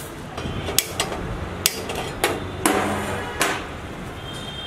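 A string of about six sharp taps and clinks: dried red chilies dropping into a stainless steel bowl of whole spices as a small ceramic bowl knocks against the steel.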